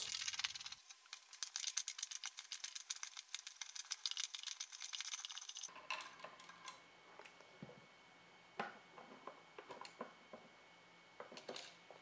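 Flathead screwdriver turning out a wall outlet's metal mounting screws, a rapid faint metallic clicking and scraping. About halfway through it gives way to scattered single clicks and taps as the outlet is worked loose from the electrical box.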